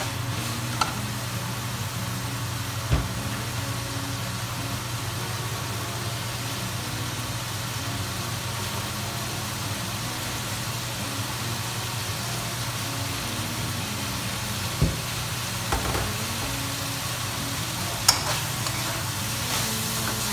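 Shallots, garlic and chillies sizzling in oil in a wok, the spice base being sautéed until fragrant, over a steady low hum. A metal spatula knocks and scrapes against the wok a few times, about three seconds in and again near the end.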